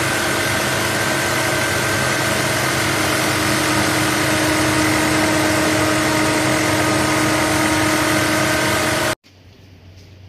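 Industrial sewing machine running steadily, stitching human hair into a weft, a loud even machine hum with a constant pitch. It stops abruptly about nine seconds in.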